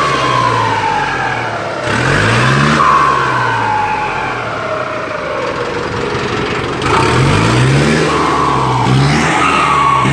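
Cummins 4BT turbo-diesel revved three times, its Holset HX30W turbo whistling. The turbo has been given a whistle modification ('pente'), and its high whistle climbs with each rev and glides down as the turbo spools down.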